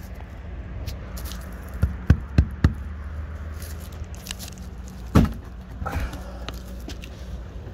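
Footsteps and knocks on the deck of a derelict boat: a quick run of three or four sharp knocks about two seconds in and one more about five seconds in, over a low steady rumble.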